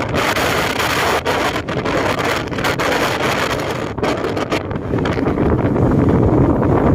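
Strong typhoon wind buffeting the microphone on a fishing boat's deck: a loud, unbroken rush with irregular gusty buffets.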